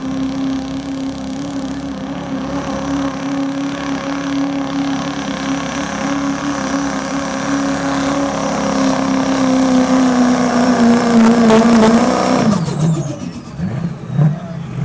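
GMC Sierra pickup's diesel engine running at full throttle while pulling a weight-transfer sled, its pitch held high and steady, then sagging a little under the growing load. About twelve and a half seconds in the throttle is let off and the engine note drops away, with a high whistle falling off.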